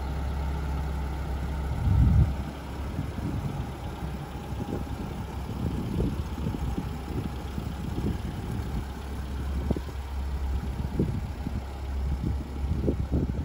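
BMW E30 318i's four-cylinder engine idling steadily, with irregular low thumps over it, the loudest about two seconds in.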